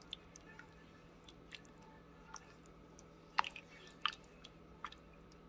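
Spoon stirring a creamy chicken stew in a slow cooker crock: faint wet squishing with scattered light clicks of the spoon, a few louder ones past the middle.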